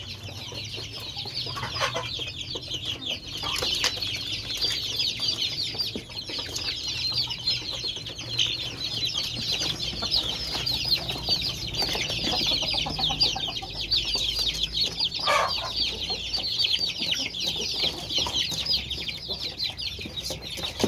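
A flock of about forty young kampung chickens, around five weeks old, peeping continuously: a dense chorus of many short, high chirps overlapping without a break, with an occasional louder single call.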